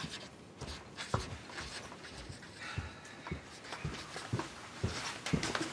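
Pen writing on paper: scratching strokes with a few soft knocks at irregular intervals.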